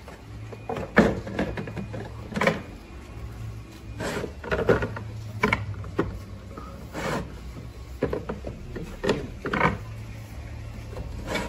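Slit 100 mm PVC sewer pipe being pushed by hand onto the edge of a corrugated roof sheet: irregular knocks, clicks and scrapes as the pipe's split edge grips over the sheet's ridges.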